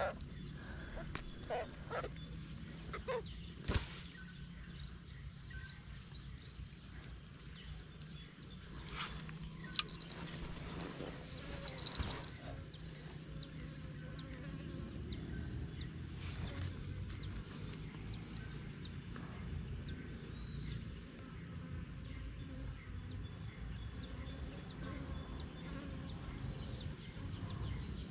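A steady, high-pitched chorus of insects. A few short handling clicks and rustles sound over it, the loudest about a third of the way in.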